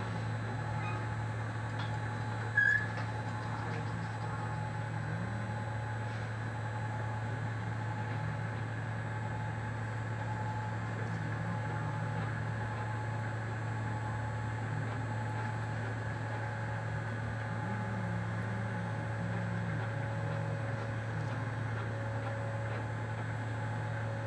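Bungee winch motor running steadily as it hauls the jumper back up to the platform, a constant low hum. A brief sharp click sounds about three seconds in.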